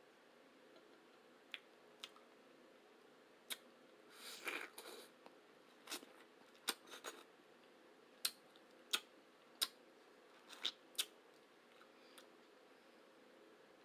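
Close-miked eating sounds: a person chewing, with about a dozen sharp wet mouth clicks and smacks scattered through and a short noisier stretch of chewing about four seconds in.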